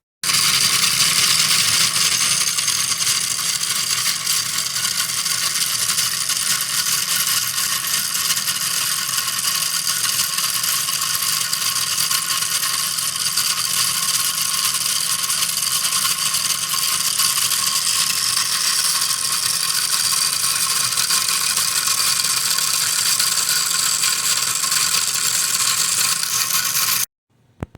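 3D-printed plastic gearbox driven by a small DC motor, its gears running with a steady ratcheting whir. It starts just after the beginning and cuts off suddenly near the end, followed by a single click.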